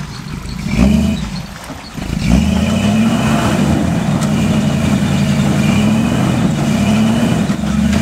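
Jeep CJ-8 Scrambler's engine working under load as it crawls up a rocky ledge, getting louder about two seconds in and then holding a steady note.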